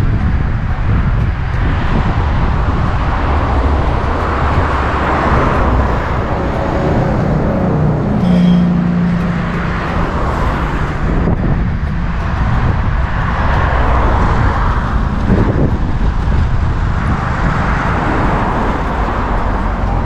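Road traffic noise: a steady low rumble with the hiss of passing vehicles swelling and fading several times, and a brief engine hum about eight seconds in.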